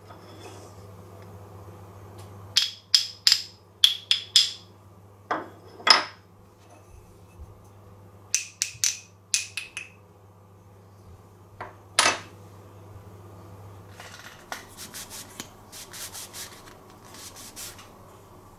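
Solid hardwood rods clacking against each other and being set down on a wooden workbench: sharp, ringing wooden knocks in several quick clusters. Near the end come lighter, quicker clicks and rubbing as a rod is wiped with a cloth.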